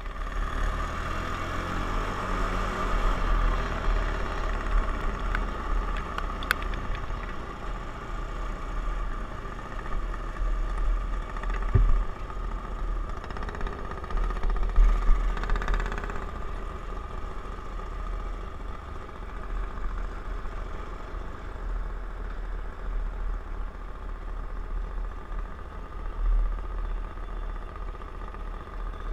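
Racing ride-on lawn mower's engine running steadily under way, heard from on board over a gusting low rumble. There are a couple of louder jolts midway.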